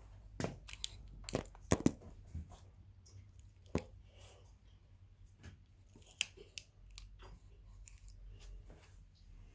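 Handling noise from a camera being set up: irregular clicks, knocks and rustles, the loudest a quick pair a little under two seconds in and single knocks a few seconds later.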